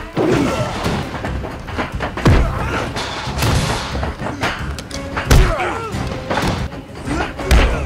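Film fight sound effects: several hard thumps of punches and bodies colliding over a dense music score.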